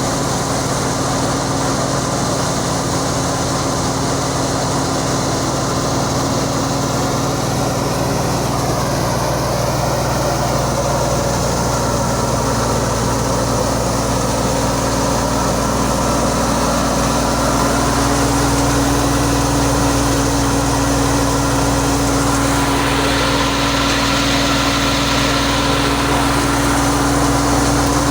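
Wheat-harvesting machine's engine running steadily: a continuous drone at a constant pitch that gets a little louder about halfway through.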